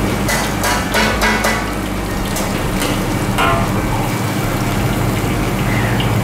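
Sliced shallots and aromatics sizzling in hot oil in a steel wok as sliced chillies and dried shrimp are tipped in from a steel bowl, with sharp metal clicks and scrapes against the wok in the first couple of seconds and a few more later. A steady low hum runs underneath.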